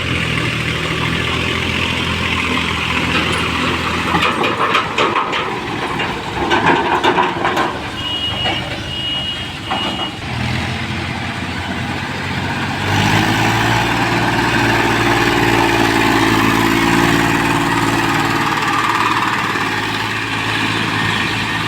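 Heavy diesel engine running steadily. In the middle come a stretch of clattering knocks and a brief high steady tone. About thirteen seconds in, the engine revs up and holds at a higher, louder speed.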